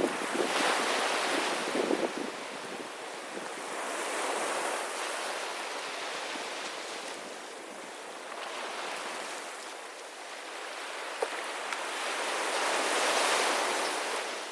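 Sea waves breaking and washing up on a beach, the surf swelling and fading in slow surges every few seconds.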